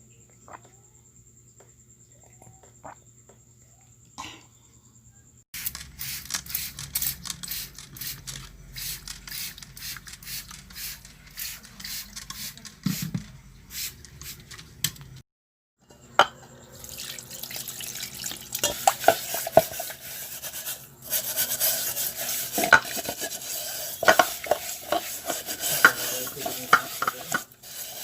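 Clattering and clinking like dishes and cutlery being handled, in two stretches with a brief break about fifteen seconds in; the second stretch has short ringing clinks. The first few seconds hold only a faint high steady tone and a few ticks.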